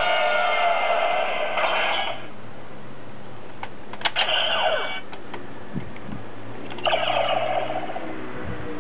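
DX Decade transformation belt toy playing its electronic sound effects through its small built-in speaker, in three short bursts of bright, tinny tones. The middle burst has a falling sweep, and there are a couple of plastic clicks just before it.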